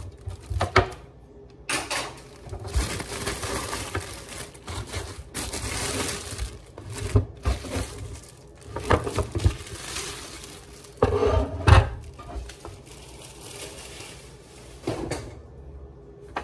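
Clear plastic packaging crinkling and rustling as it is pulled off a new electric griddle and skillet, with a few knocks and clunks from handling the appliance, the loudest about three-quarters of the way through.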